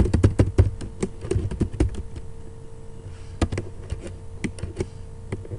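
Typing on a computer keyboard: a quick run of key clicks for about the first two seconds, then scattered single keystrokes, over a faint steady hum.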